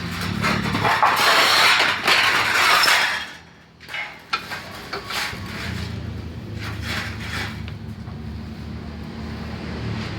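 Rasping work on the welded joint of a steel band saw blade for about three seconds, then a few sharp metallic clinks, then a low steady hum.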